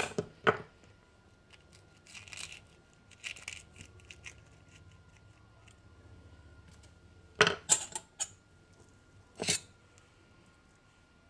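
Scattered clicks and taps of food preparation: a knife coring a small hot cherry pepper, then a metal spoon clinking against a stainless-steel bowl of rice filling, with the loudest clinks about seven and a half seconds in and again near ten seconds.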